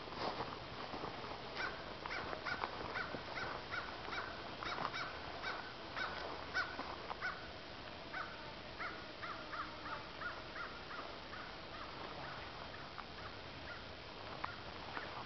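A bird calling in two long runs of short, evenly repeated calls, a few calls a second, one run in the first half and a second after a brief pause.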